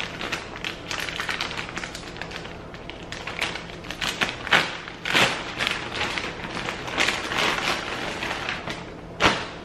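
Plastic packaging crinkling and rustling as it is handled and pulled open, with a few sharper crackles, the loudest about four and a half, five and nine seconds in.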